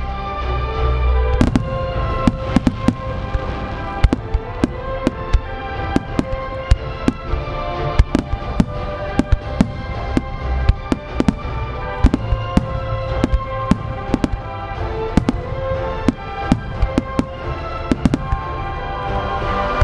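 Aerial firework shells bursting in a creative fireworks display: dozens of sharp bangs at uneven intervals, a couple each second, over accompanying music.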